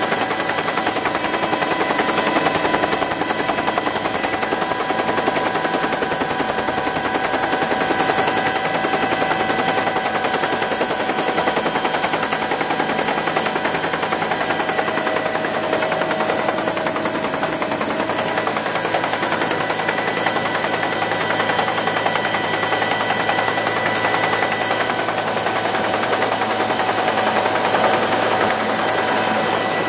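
Bell UH-1 Huey helicopter heard from inside its cabin: a steady, rapid beat of the rotor blades over the turbine's constant whine.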